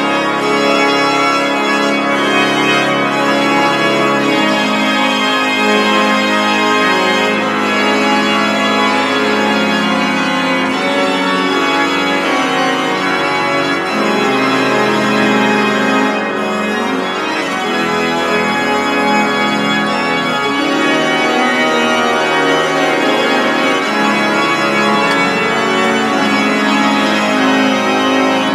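The 1793 Holzhey pipe organ playing loud, continuous French Baroque music on the grand jeu, its full reed-and-cornet registration, with sustained chords under moving lines.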